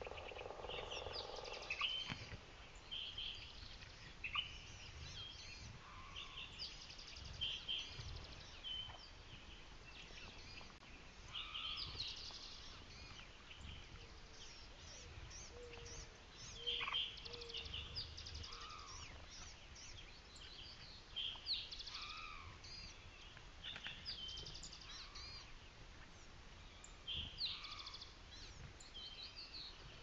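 Several songbirds calling and singing in a morning chorus: many short chirps, whistles and trills overlap throughout, over a faint low rumble.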